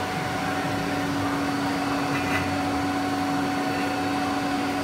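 Anayak FBZ 3000 CNC milling machine running: a steady machine hum with a held low tone and a fainter higher one over an even rush of noise.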